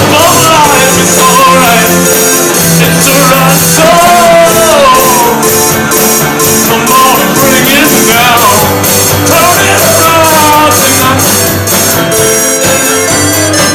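Rock band playing a song: a lead vocal over guitar and drums with a steady beat.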